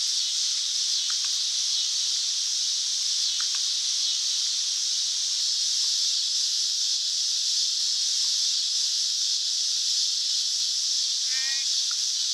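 Steady high-pitched hiss, with a short chirp near the end.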